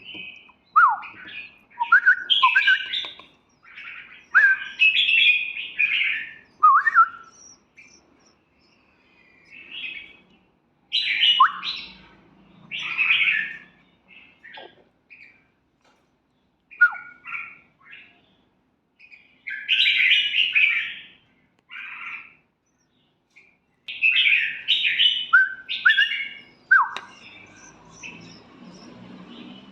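Caged red-whiskered bulbul singing in short phrases of whistled notes, some sweeping down in pitch. The phrases come in bursts of a second or two with pauses between them.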